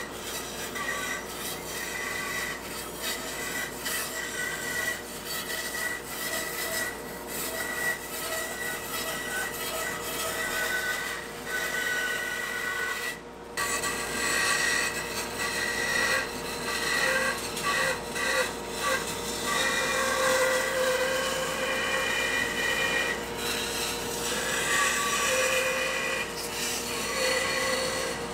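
Band saw running and cutting a curve through a thick spalted wood board: a steady whine from the machine under the continuous rasp of the blade in the wood. The sound drops out briefly about halfway through.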